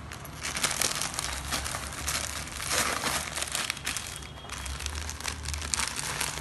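Clear plastic saree packet crinkling and rustling as it is handled and pulled out of its paper wrapping. The crinkling is irregular, starts about half a second in and eases briefly a little after four seconds.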